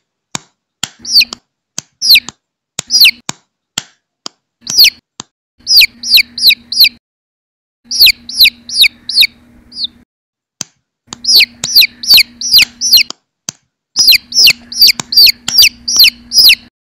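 Domestic chicken chick peeping loudly: short high peeps that slide downward, given in quick runs of several with brief pauses, and sharp clicks in between.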